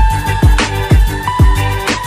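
Background music: an electronic hip-hop-style beat with deep kick drums that drop in pitch, about two a second, over a steady bass and held synth notes.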